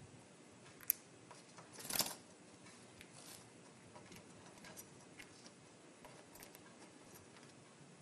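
A budgerigar moving about on a windowsill. Faint scattered ticks and clicks, a sharp click about a second in, and a short rustle of feathers about two seconds in.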